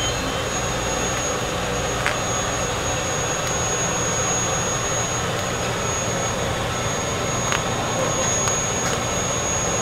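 Steady rushing mechanical hum with a thin high whine over it, and a few light clicks as tongs handle food into a plastic tray, one about two seconds in and another near seven and a half seconds.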